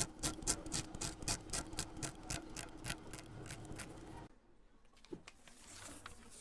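Quick rhythmic scraping strokes, about five a second, stopping abruptly about four seconds in, followed by a faint rising hiss.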